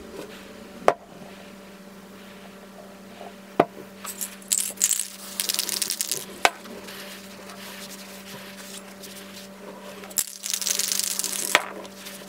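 A cloth rag rubbing along the steel shaft of a bench-grinder motor's rotor, in two scrubbing spells about four and ten seconds in. A few sharp clicks fall between them, over a faint steady hum.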